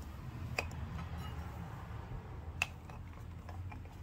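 A few sharp clicks and light taps as a rag is tucked around the hub and a flat pry bar is set against the steel wheel rim, the loudest click about two and a half seconds in, over a low steady hum.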